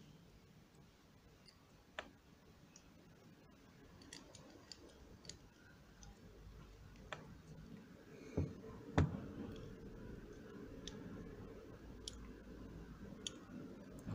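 Scattered faint clicks and taps of small metal parts as fingers handle the deck of a Geekvape Zeus X rebuildable atomizer, with two louder knocks close together a little past the middle.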